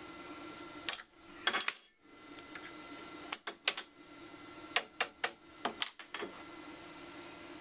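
Irregular sharp metallic clicks and clinks as the router's collet is loosened by hand and the V-bit is taken out and set down, over a steady low hum.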